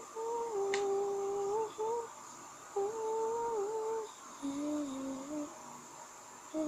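A person humming a slow tune in long held notes, with short breaks between phrases; the tune drops lower a little past the middle.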